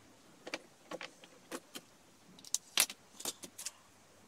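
Short, sharp clicks and light rattles, about a dozen over three seconds with the loudest near the middle: metal scissors and a plastic strip being picked up and handled against a plastic basket lid.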